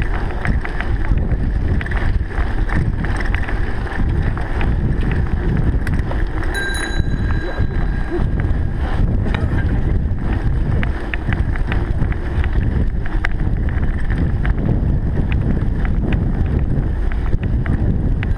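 Wind buffeting the microphone with a steady low rumble, dotted with many small clicks and rattles. A brief thin high squeal comes about six and a half seconds in.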